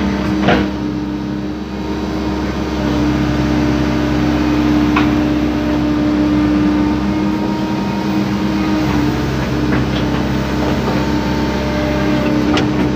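Hydraulic excavator's diesel engine running steadily under load, heard from inside the cab while the joysticks work the arm and bucket. A few short knocks sound over it, about half a second in, near the middle and near the end.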